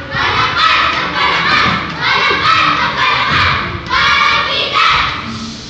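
A group of children's voices reciting loudly in unison, a choral reading delivered in short phrases with brief pauses.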